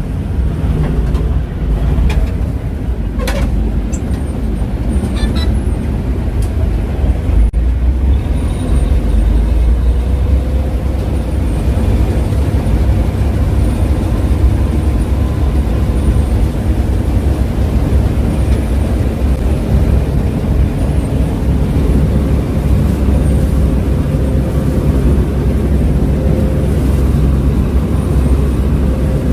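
Claas Mercator 50 combine harvester running steadily, a loud low engine-and-machinery rumble with a couple of sharp clicks in the first few seconds.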